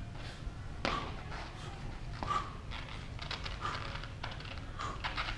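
A man breathing hard through a kettlebell Turkish get-up, taking a short forceful breath about four times, one for each step down to the floor, over a low steady room hum.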